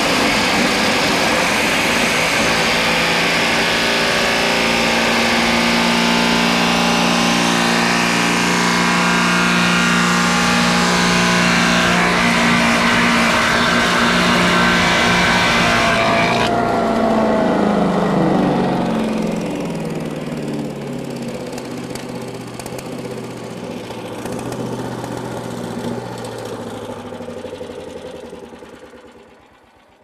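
Gas-engined Harbor Freight chipper shredder running at full speed, grinding split 2x12 lumber into chips. A little past halfway the grinding stops; the engine then slows, its pitch falling, and dies away as it runs out of gas.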